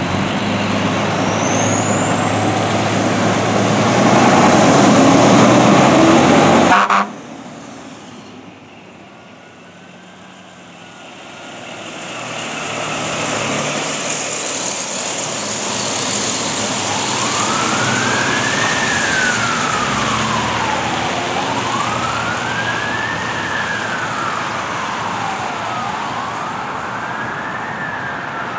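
Fire apparatus responding. For about the first seven seconds there is loud, close engine and road noise with a rising whine, which cuts off abruptly. After a quieter spell, an electronic wail siren sweeps slowly up and down, about one cycle every four and a half seconds.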